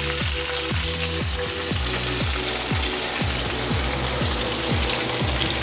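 Chicken juices and rendered fat sizzling in a hot cast-iron skillet fresh from the oven. Over it plays background music with a steady beat of deep, falling drum hits about twice a second.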